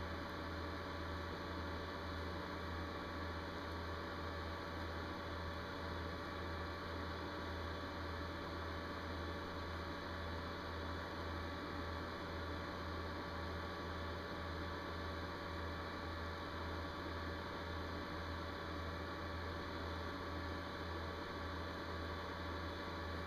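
Steady low electrical hum with a couple of faint higher steady tones over a background hiss; no distinct knocks or clicks stand out.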